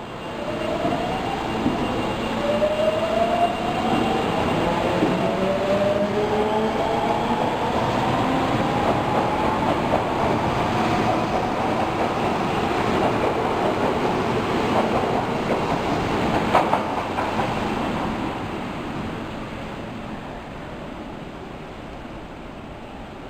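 Osaka Metro Tanimachi Line subway train accelerating away, its traction motors whining in several tones that climb steadily in pitch over a loud running noise. A sharp click comes about two-thirds of the way through, and the train sound then fades over the last few seconds.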